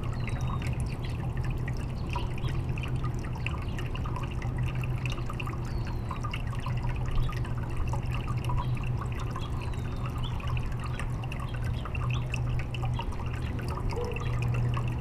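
Thin streams of a small garden water fountain trickling and dripping into its basin, with many small drips and splashes, over a steady low hum.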